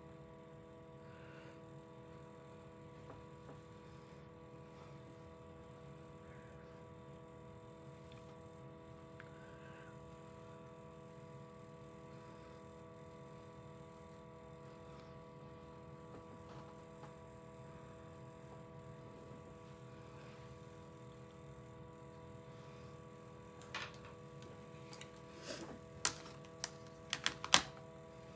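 Quiet room tone with a steady electrical hum, then a handful of sharp clicks and taps in the last few seconds, the loudest about a second before the end.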